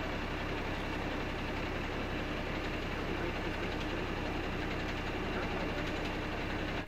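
Fire truck's diesel engine idling: a steady, even low running.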